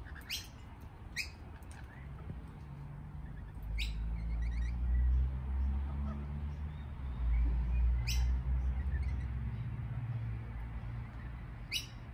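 Lorikeets giving a handful of short, sharp high calls, spaced a few seconds apart. Under them a low rumble swells through the middle and is the loudest sound.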